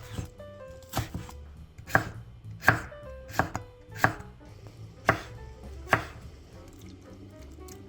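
Kitchen knife chopping vegetables on a cutting board: about eight firm, separate strokes roughly a second apart, stopping about six seconds in.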